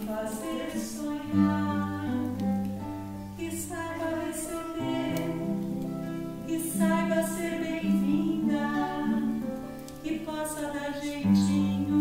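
Singing with acoustic guitar accompaniment: a melody of held notes over plucked chords.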